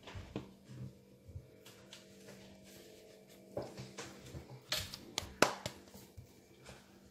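Scattered light knocks and taps of things being handled on a wooden kitchen table, with a sharper knock about five seconds in, over a steady low hum.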